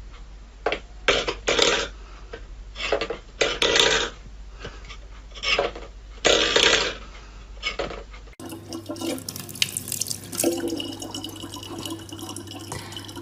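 A small steel bowl knocked and scraped across a wooden floor by a cat's paw, in a series of short clatters about one or two a second. After a sudden cut, a tap runs steadily in a thin stream into a sink.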